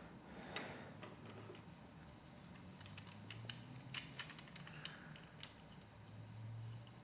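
Faint small clicks and taps of Lego Technic plastic pieces being handled and fitted together, an irregular scatter that is busiest in the middle seconds.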